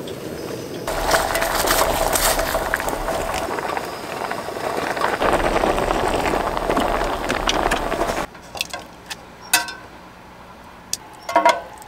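Water pouring into a stainless steel pot, a steady splashing rush that stops abruptly about eight seconds in. A few light knocks follow.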